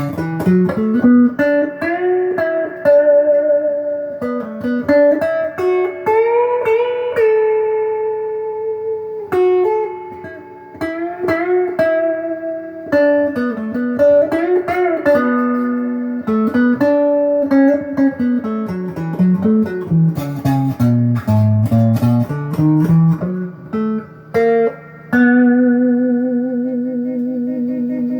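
Les Paul–style electric guitar with stock pickups played through an amp on the middle pickup position: single-note lead lines with string bends and vibrato, ending on a long held note with vibrato.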